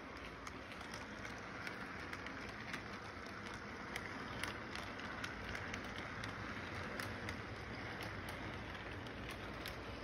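Model train rolling along its track: a steady running noise with scattered sharp clicks, typical of wheels passing over rail joints.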